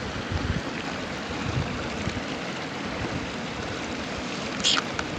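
Steady rushing of a stream flowing over rocks, with a brief high sound near the end.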